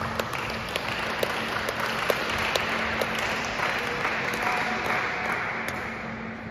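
Spectators clapping and applauding at a badminton match, the clapping dying away near the end.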